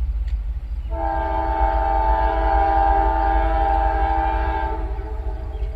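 Approaching freight train's lead diesel locomotive sounding its multi-chime air horn in one long blast of several tones at once. It starts about a second in and stops about five seconds in, over a steady low rumble.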